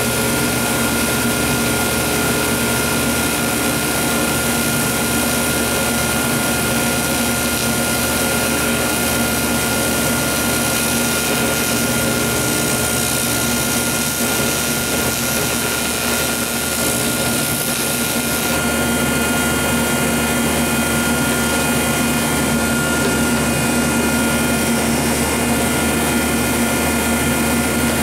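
TIG welder and its cooler running with a steady hum while an AC TIG arc welds aluminium, hissing over the hum; the arc stops about two-thirds of the way through, leaving the machine's hum.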